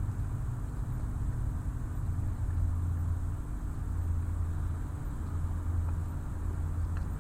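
Steady low engine hum with a rumble beneath it, holding an even pitch throughout; a couple of faint clicks near the end.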